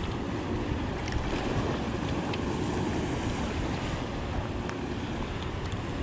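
Steady wind buffeting the microphone over water lapping around a small fishing boat, with a few faint clicks.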